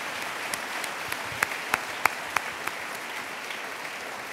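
An audience applauding steadily, with a few louder single claps standing out about a second and a half to two and a half seconds in.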